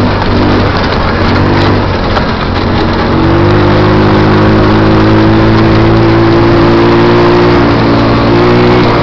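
Go-kart engine running loudly under way, its note unsettled at first and then holding a steady pitch from about three seconds in, with a brief dip and pick-up near the end.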